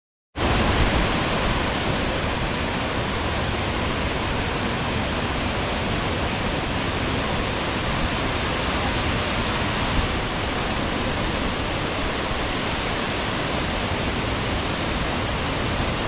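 Waterfall cascading down a steep rock face: a loud, steady rush of falling water that starts abruptly just after the beginning.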